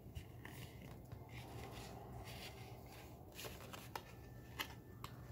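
Faint handling of a CD jewel case and its paper booklet: light rustling with a scatter of small clicks and taps as the booklet is fitted into the case.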